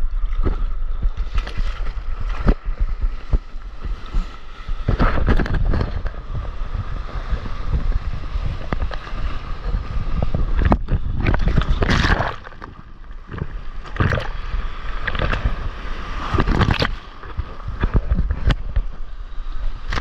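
Sea water splashing and rushing around a surfboard while paddling and riding a small wave, with wind buffeting the microphone as a steady low rumble. Louder surges of splashing come and go every second or two.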